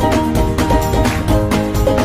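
Background music: an upbeat tune with a steady beat and plucked-string notes.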